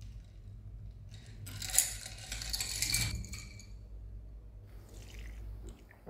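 Kitchenware being handled: a sharp clink, then about a second and a half of rattling and scraping clatter ending in a short ringing tone, with a fainter clatter a couple of seconds later.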